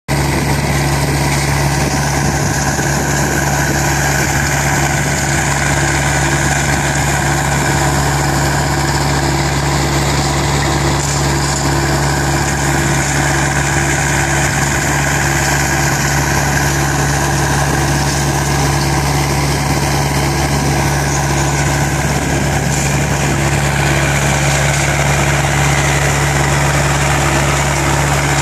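Powerscreen Chieftain 2100 tracked screening plant running, its Deutz diesel engine holding a steady speed with an unbroken mechanical hum.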